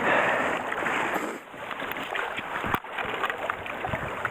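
Water splashing and sloshing as a hand net is worked through bankside weeds in a shallow stream, loudest for the first second and a half, then quieter running water as the net is lifted out.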